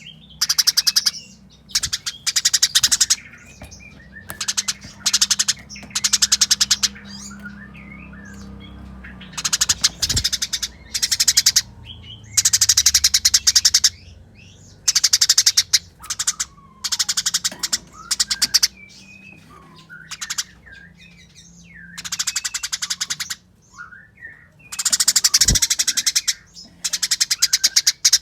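Eurasian tree sparrow giving the agitated fighting chatter: bursts of very rapid, dense chirps, each lasting about a second or two, repeated with short pauses.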